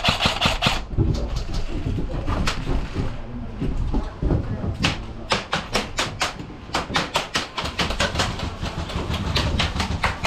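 Airsoft guns firing several rapid bursts, the shots clicking off at a fast even rate. The last and longest burst runs through the second half. Throughout there is a steady low rumble.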